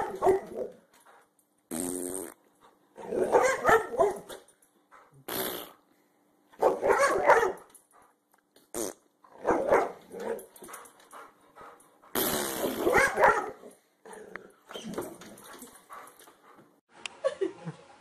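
Boxer dog barking and growling in a series of loud bursts, one every couple of seconds.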